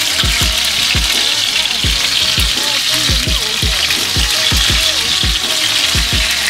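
Chicken wings frying in a thin layer of olive oil in a skillet: a steady, loud hissing sizzle. Repeated low booming notes that fall in pitch run underneath, about two a second.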